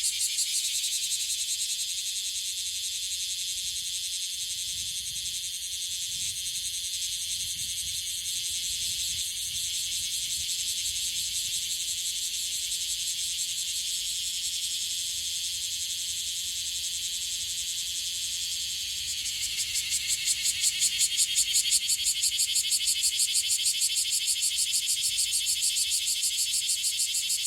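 Bear cicada (Cryptotympana facialis) singing: a loud, rapidly pulsing high buzz. It eases off after the first second or two and swells louder again about two-thirds of the way through.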